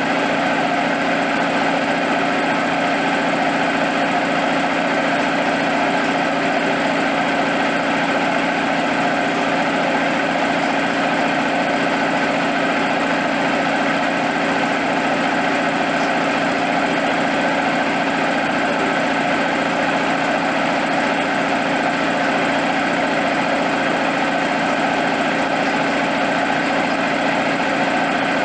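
U43102 piston air compressor, driven by a 3 kW 220 V electric motor, running steadily as it pumps up its receiver tank, the pressure still building toward cut-out.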